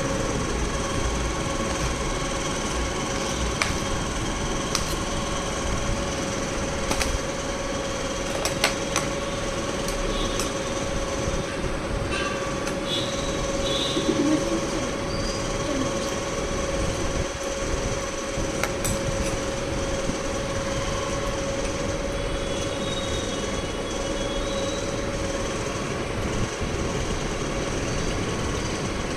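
A steady mechanical hum with a constant pitch runs throughout. Now and then a steel spoon clinks against the plates.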